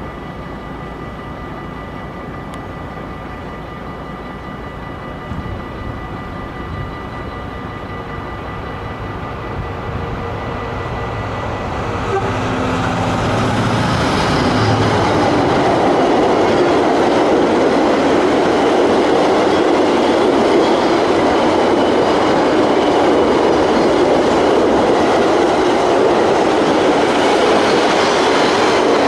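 A G2000 diesel locomotive approaching and growing steadily louder. From about twelve seconds in it passes, and a train of empty car-carrier wagons rolls by with a steady, louder rumble and wheel clatter.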